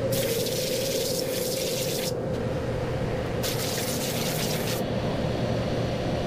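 A dust collector runs with a steady hum. Over it, a hand-held hose nozzle hisses in two bursts: one of about two seconds at the start, and a shorter one a little after the middle.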